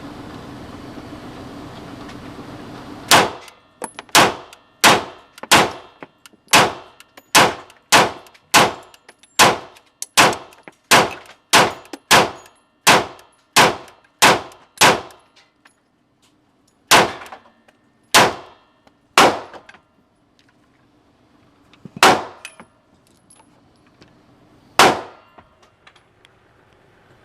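CZ P-09 pistol shots: a fast string of about seventeen shots a little under a second apart, then six slower, spaced shots.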